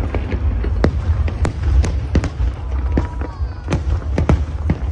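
Aerial fireworks going off in a rapid, irregular series of sharp bangs and crackles over a steady deep rumble.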